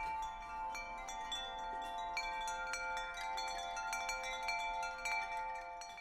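Wind chimes ringing: many light, scattered strikes over a wash of sustained chime tones, starting to fade near the end.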